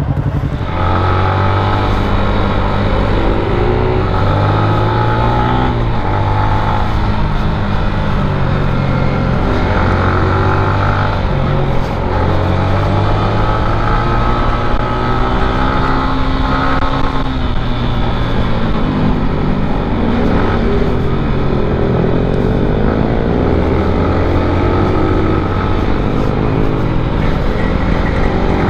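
Underbone motorcycle engine of about 150 cc running under way, its pitch repeatedly climbing and dropping as the rider accelerates and changes gear.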